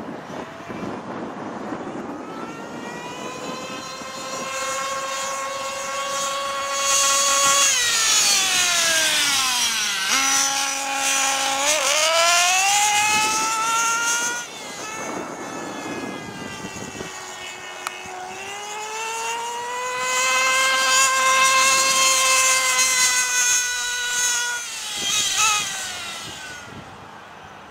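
Small two-stroke nitro engine (OS .30VG) of an OFNA Violator RC car screaming at high revs. Its high-pitched whine climbs, drops sharply about eight to ten seconds in as the car passes by and slows, then revs up again. A second long run from about eighteen seconds falls away near the end.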